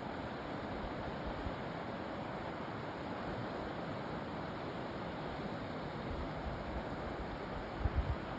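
Steady rush of fast-flowing stream water, with wind buffeting the microphone near the end.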